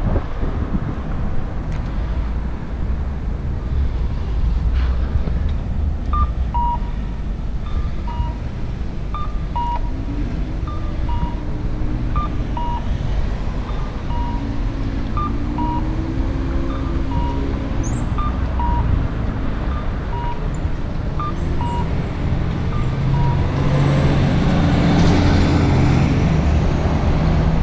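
Steady low rumble of road traffic, with an electronic beeper sounding two alternating tones, high and low, about twice a second. The beeping starts about six seconds in and stops some seconds before the end. Near the end the noise rises as a vehicle passes close by.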